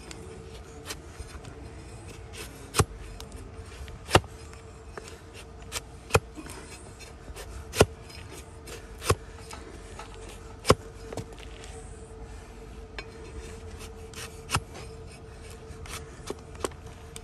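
Heavy flat-bladed hoof knife paring an overgrown donkey hoof: about a dozen sharp, crisp cuts through the hoof horn, irregularly spaced one to two seconds apart, with faint scraping between.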